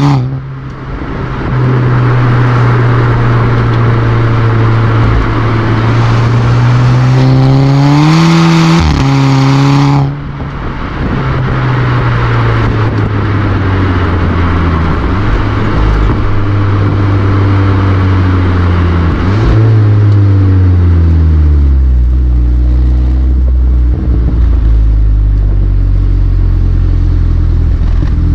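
Exhaust note of a MK6 Volkswagen Golf R, its turbocharged 2.0-litre four-cylinder running an APR Stage 2+ tune, heard close to the tailpipe while driving. The pitch climbs under acceleration and drops off suddenly twice, right at the start and about ten seconds in, then falls steadily as the car slows and settles into a low, steady drone near the end.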